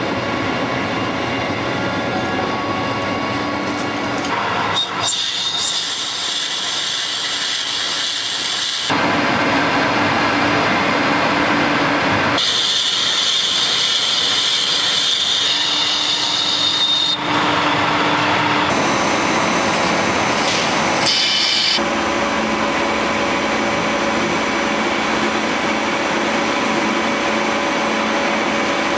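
Manual metal lathe running and cutting hydraulic cylinder parts, the sound changing abruptly every few seconds, with a steady high whine in some passages.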